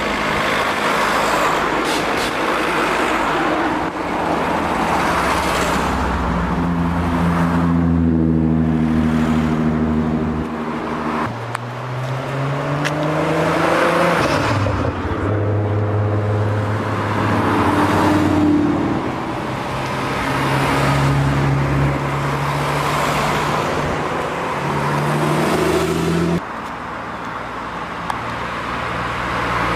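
A stream of cars driving past, one after another. From about a third of the way in, an engine is heard revving up, dropping sharply and climbing again, as if shifting through the gears.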